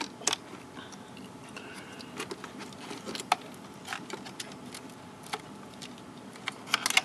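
Light clicks and taps from hands handling the metal bracket and heat-sink assembly of a disassembled iMac's logic board, scattered single clicks with a quick cluster of them near the end.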